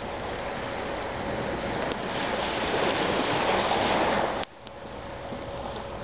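Waves washing onto the beach, a steady rushing noise that swells over the middle and cuts off sharply about four and a half seconds in.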